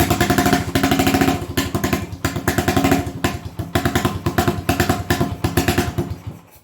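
1980 Honda XL250S single-cylinder four-stroke engine running unevenly, its loudness swelling and dipping, with the carburettor set at full rich. The owner thinks the bad running is mixture related. The sound cuts off suddenly near the end.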